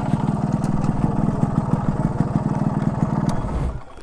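Yamaha RX100's 98 cc two-stroke single-cylinder engine running at low revs with a fast, even beat, then cutting out just before the end.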